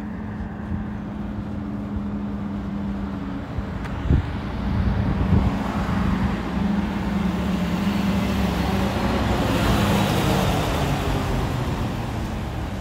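Road traffic noise from a busy main road: a steady engine hum with passing cars, the noise swelling as a vehicle goes by about ten seconds in. Two brief thumps about four and five seconds in.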